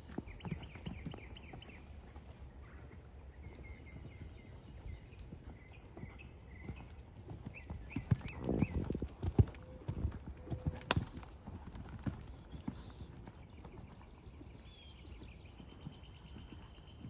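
Horse's hooves striking sand arena footing at trot and canter, an uneven run of dull hoofbeats that is loudest a little past the middle, with one sharp crack about eleven seconds in.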